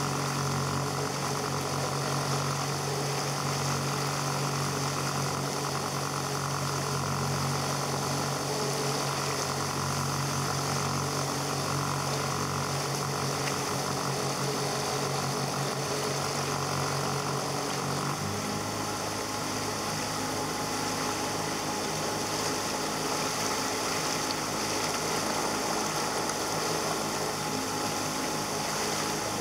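Small boat's outboard motor running steadily under way, with rushing water and wind hiss. The engine note shifts about two-thirds of the way through.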